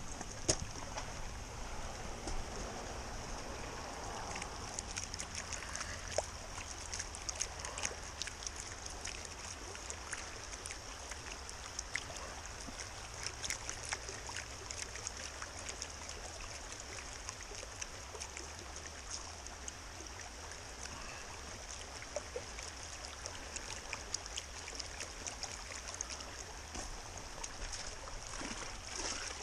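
Shallow rocky creek running steadily over stones, a continuous hiss of water, with scattered light clicks and knocks over it.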